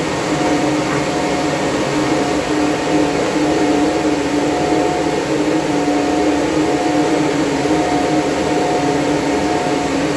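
Loud, steady whir of the high-speed cooling fans of running Antminer crypto-mining machines, with a steady hum at two pitches.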